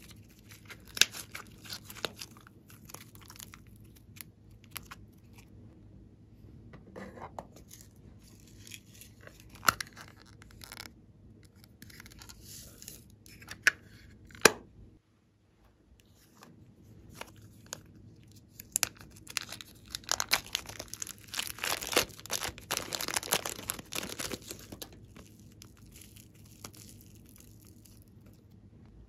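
Hands squishing and pulling soft clay and slime, with sticky crackling, tearing sounds and scattered clicks. There is one sharp click about halfway through and a denser run of crackling about twenty seconds in.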